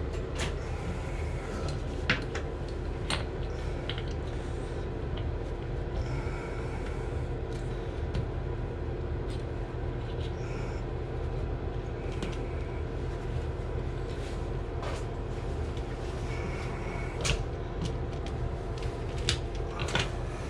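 Small hand tools and brass faucet-stem parts handled at a workbench: scattered clicks and knocks, a few sharper ones about two seconds in and near the end, over a steady low hum.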